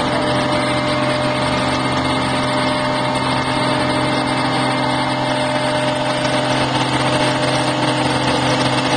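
Mobile crane's engine running steadily at a constant pitch while it holds a lifted load.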